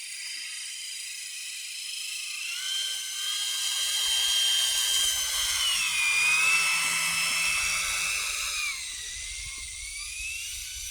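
Electric motor and geartrain of a 6S Traxxas Summit RC truck on tracks, running in low range with a high-pitched whine. The pitch rises about two and a half seconds in, drops around six seconds and again near nine seconds, then climbs again, with a low rumble under it as the truck churns through snow.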